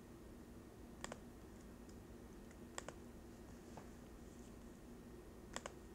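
Faint, sparse clicks of a computer mouse button, about four spread out, the last a quick double click near the end.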